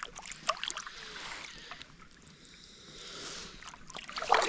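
Kayak paddle strokes: the blades dip and splash in the river water with dripping ticks, the loudest splash just before the end.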